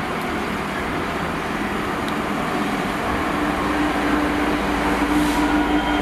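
Class 66 diesel-electric freight locomotive, with an EMD two-stroke V12 engine, running as it approaches hauling tank wagons. A steady low rumble grows slowly louder, with a level hum that strengthens from about halfway.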